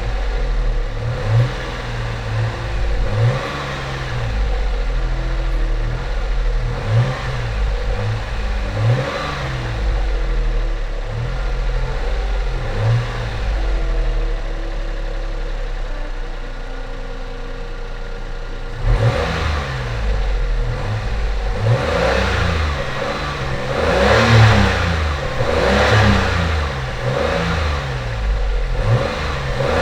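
Daihatsu Xenia 1000's three-cylinder petrol engine revved in repeated short blips, about one a second, rising and falling back to idle; from about two-thirds of the way through the blips get louder and come closer together. This is a test run after the throttle body and idle speed control valve were cleaned and refitted.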